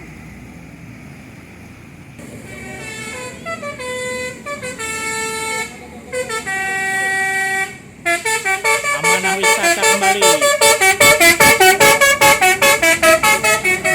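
A bus's basuri telolet horn playing a tune of stepped, held notes. About eight seconds in it switches to a fast staccato of about five blasts a second, which grows louder.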